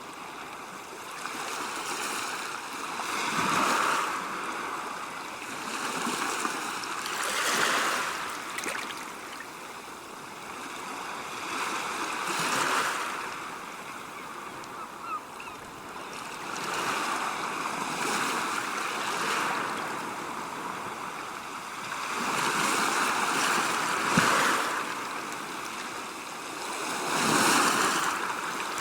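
Sea waves washing ashore, the surf rising and falling in slow surges about every four to five seconds.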